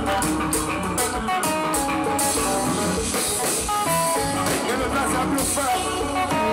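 A konpa band playing: a guitar melody over bass and drums, with a steady cymbal beat.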